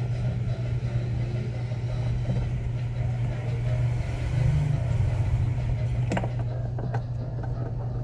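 A steady low hum with two faint clicks about six and seven seconds in.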